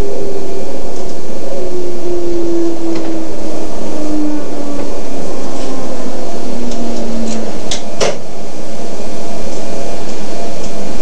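Joetsu Shinkansen 200 series train running through the Daishimizu Tunnel, heard from inside the driver's cab: a steady, loud running noise with a tone gliding slowly down over the first seven seconds, and two sharp cracks about eight seconds in.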